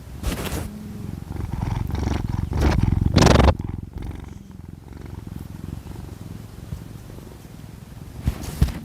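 Sleeping cat snoring: a low rattling rumble with louder, noisy breaths over it, the loudest a little over three seconds in.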